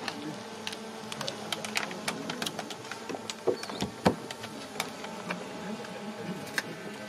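Open-air crowd ambience: faint murmuring voices, scattered light clicks and a steady low buzz.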